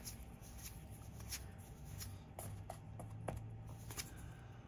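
Magic: The Gathering cards being flipped through by hand, each card slid off the front of the stack and tucked behind, making soft, irregular card clicks and slides.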